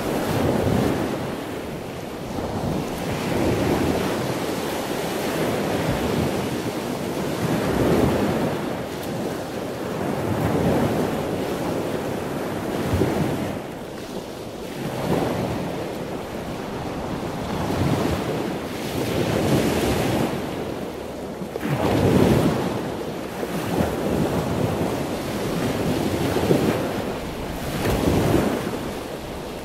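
Water rushing and splashing along a moving boat's hull at the bow wave, with wind buffeting the microphone; the rush swells and eases every couple of seconds.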